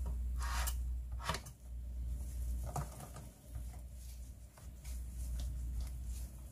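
Hands handling wet, blanched butterbur stems and leaves: a few short rustling, squishing strokes in the first three seconds, then softer brushing and light scratches as the leaves are spread on a bamboo tray. A steady low hum runs underneath.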